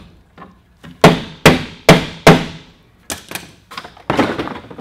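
Four hard smacks on a car's plastic door trim panel, about half a second apart. Lighter knocks and rattles follow as the panel is handled and comes off the door.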